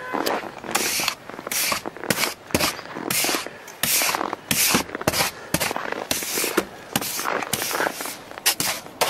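Snow brush sweeping snow and frost off a frozen car's glass and bodywork in quick, repeated strokes, each a short scraping swish.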